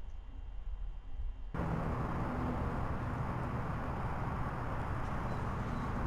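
Low vehicle rumble that switches abruptly, about one and a half seconds in, to a louder, steady rushing rumble with a low engine hum underneath.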